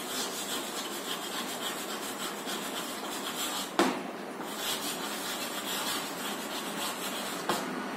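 Chalk scratching on a chalkboard as words are written, with a sharp tap of the chalk on the board about four seconds in.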